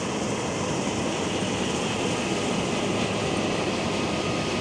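Heavy farm machinery running at a steady pace: an even, continuous mechanical noise that holds without change.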